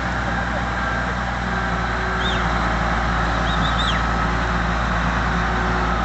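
Heavy truck engine running steadily, with a few short high chirps about two seconds and four seconds in.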